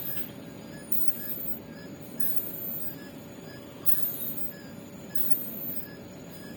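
Avea mechanical ventilator cycling, a short hiss of air about every second and a half, over a steady low hum and a faint steady tone. Faint short pips repeat about twice a second.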